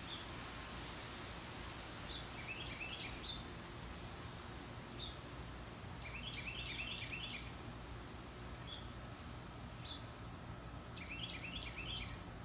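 Birds calling, repeating the same quick run of rising chirps three times, about every four to five seconds, with single high notes in between, over a steady low background rumble.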